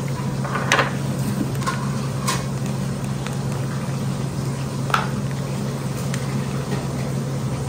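Soft plastic mayonnaise pouch being squeezed into a glass bowl: a few short crinkles and squelches, the sharpest about a second in and again near five seconds, over a steady low hum.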